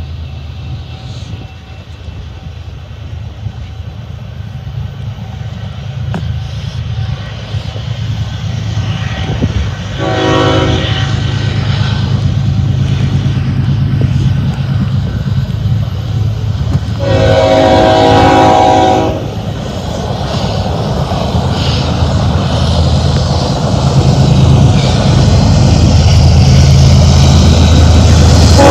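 BNSF diesel freight locomotives approaching under power, their low engine rumble growing steadily louder. The lead unit's air horn sounds a short blast about ten seconds in and a longer, louder one of about two seconds near the middle. It starts sounding again at the very end.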